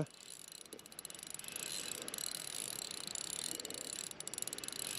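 Spinning reel being wound against a hooked sea trout, a faint steady mechanical whir with a few light ticks.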